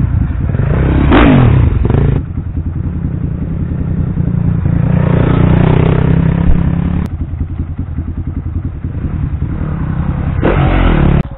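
Off-road trail motorcycle engines running and revving as bikes climb a rough dirt track, with a rising rev about a second in. The sound changes abruptly twice, and again just before the end.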